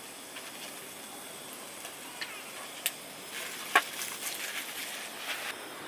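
Camping gear being handled: a few sharp clicks and knocks, the loudest about four seconds in, with bursts of rustling over a steady hiss.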